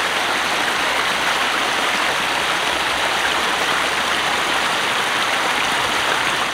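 Shallow rocky stream running over small cascades: a steady rush of water.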